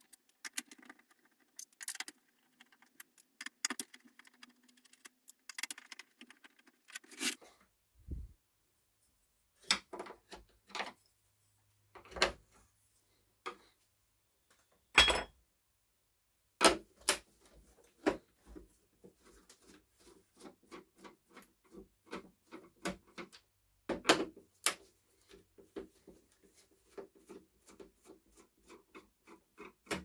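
Irregular clicks, taps and knocks of a screwdriver and hands on the plastic housing of a dehumidifier as it is unscrewed and turned over, with one sharp knock about halfway through.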